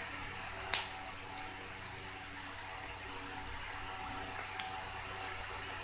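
Food prep at a table: a plastic sauce cup and spoon handled over a stainless steel tray. One sharp click comes a little under a second in, and two faint ticks follow later, over a steady hiss of room noise.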